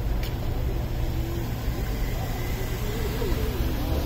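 A Volkswagen sedan driving slowly past at close range: a low, steady rumble of engine and tyres, with faint voices in the background.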